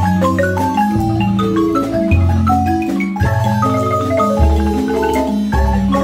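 Guatemalan marimba ensemble: several players on one large wooden marimba playing a lively tune, held notes over quick mallet runs, with deep bass notes changing about once a second underneath.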